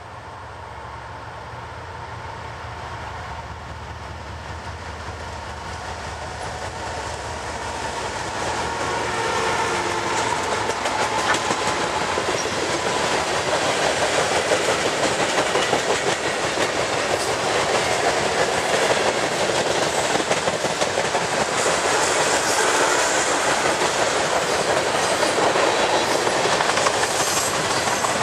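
CSX freight train passing close by. Its diesel locomotives drone, growing steadily louder as they approach over the first ten seconds or so. Then come the steady rumble and clickety-clack of the gondolas and covered hoppers rolling past on the rails.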